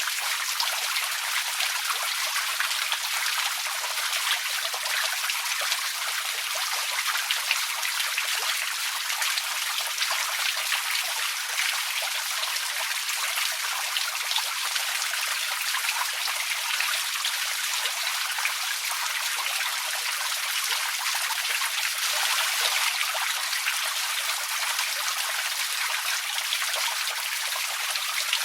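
Outdoor water fountain running steadily: a continuous hiss of falling water, speckled with many small splashes and drips, with almost no deep rumble.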